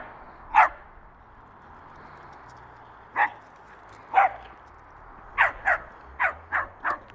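Jack Russell terrier barking at a cat in short, sharp barks: a few spaced out at first, then a quick run of five near the end.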